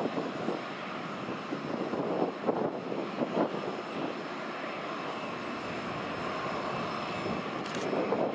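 The twin turbojet engines of a 1965 North American Sabreliner 40A idling on the ground, a steady rushing jet noise with a faint high whine on top. A few uneven, louder rumbling swells come about two to three and a half seconds in.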